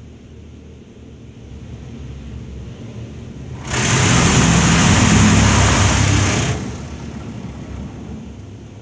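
Touchless car wash's high-pressure water spray heard from inside the car: a low rumble builds, then the jets sweep across the windshield as a loud hiss for about three seconds, starting a little under four seconds in, before falling back to the rumble.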